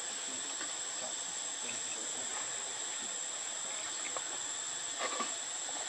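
Steady high-pitched insect drone, crickets or cicadas, over a constant hiss, with a few faint short sounds about five seconds in.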